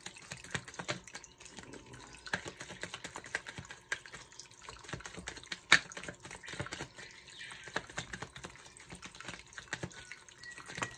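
Tarot deck shuffled by hand: a quick, uneven run of light card clicks and flicks, with one sharper snap about halfway through.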